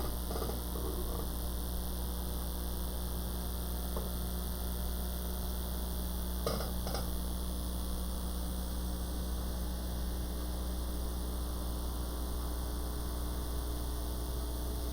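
Steady low electrical mains hum with a stack of overtones, and a couple of faint clicks about four and six and a half seconds in.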